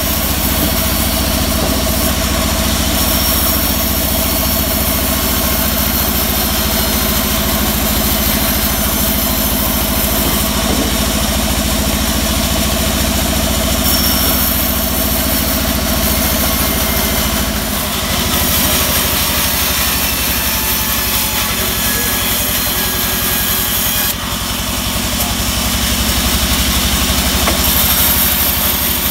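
Large band saw running with a steady drone, its blade ripping a teak beam lengthwise, with a hiss of cutting over the drone that comes and goes.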